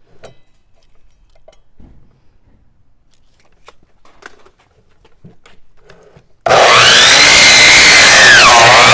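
Faint handling clicks, then an electric chop saw starts suddenly and loud about two-thirds of the way in. Its whine climbs, then drops sharply and recovers as the blade bogs down cutting through a bone-in New York strip.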